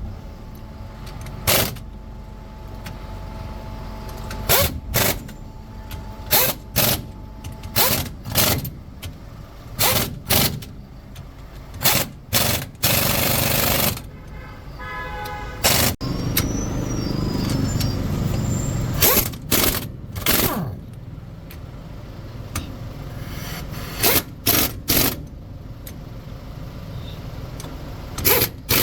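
Sharp knocks from repair work, irregularly spaced a second or two apart, with a short burst of hiss about halfway through.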